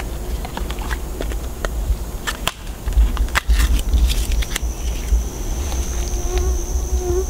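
Scattered clicks and crackles of dry leaves and a small jar of scrape beads being opened and handled, over a constant low rumble. About four and a half seconds in, an insect's steady high buzz begins.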